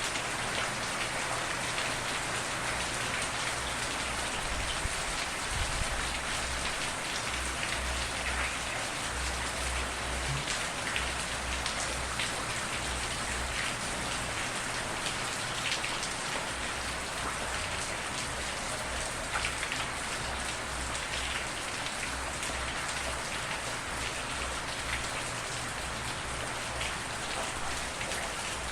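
Steady, dense rainfall: a constant hiss and patter of drops hitting a surface, with no thunder.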